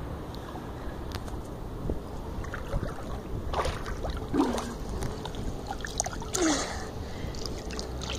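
Swimming-pool water sloshing and splashing, with scattered small clicks and two short falling glides, a little after a third of the way in and again about three quarters through.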